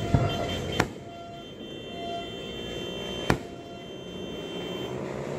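Aerial fireworks shells bursting: three sharp bangs, one right at the start, one just under a second in and one a little after three seconds, over a background of steady tones.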